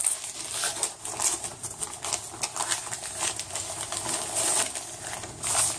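Packaging rustling and crinkling in quick, irregular scratchy bursts as the camera is unwrapped and lifted out of its box.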